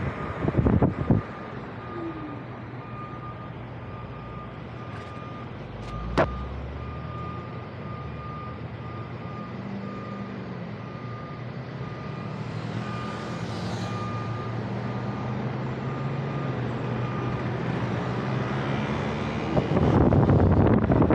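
A vehicle engine idles low while stopped in traffic, with a regular electronic beep repeating throughout and a single sharp knock about six seconds in. Near the end, heavy wind noise on the microphone returns as the ride gets moving again.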